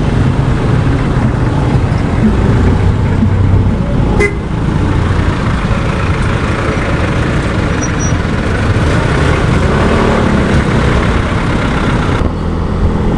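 Motorcycle engine and dense street-traffic noise, a steady low rumble, with a brief vehicle horn toot.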